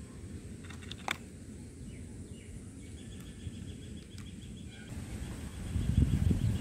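Breath blown through a plastic bubble wand, rumbling on the microphone in loud gusts near the end. Before that there is steady outdoor background noise with faint chirping and a single small click about a second in.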